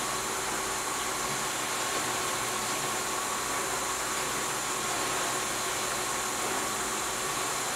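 Aquarium filter running: a steady hiss with a faint, even hum.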